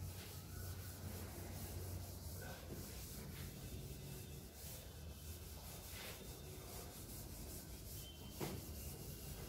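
Chalkboard duster rubbing across the board in repeated wiping strokes, erasing chalk writing.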